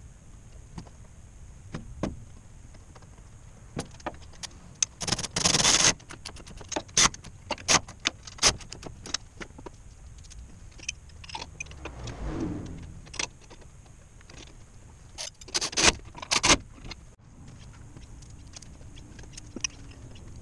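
Workshop handling noises while a winch is fitted to a vehicle's front bumper: scattered metallic clicks and clanks of parts and hand tools, with a few louder short bursts, the longest about five seconds in and another pair near sixteen seconds.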